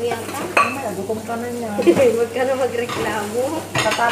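Plates clinking a few times as they are wiped with a cloth and stacked, over continuous background talk.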